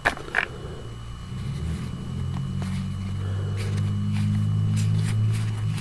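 Trading cards being sorted by hand, with faint clicks and slides of card stock, over a low engine-like rumble that builds from about a second and a half in, holds, then drops off near the end.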